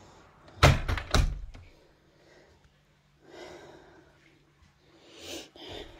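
A door being shut: two loud thumps about half a second apart near the start, followed by faint rustling.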